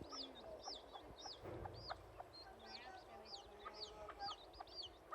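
Many small birds chirping and peeping: an unbroken run of short, high, arched notes, several a second, with a few lower calls mixed in.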